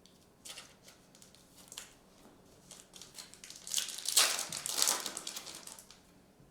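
Crinkling and rustling of a foil trading-card pack wrapper and cards being handled, in short scattered strokes with a louder stretch of crinkling about four to five seconds in.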